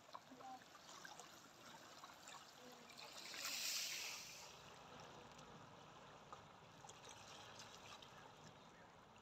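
Calm sea water lapping at a pebbly, rocky shoreline, with faint trickles and small ticks. One small wave washes in, swelling to a soft hiss about three and a half seconds in, then fades.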